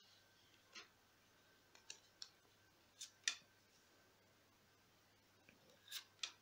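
Tarot cards being picked up and laid down on a wooden tabletop: an irregular series of short, sharp card taps and flicks, the loudest about halfway through.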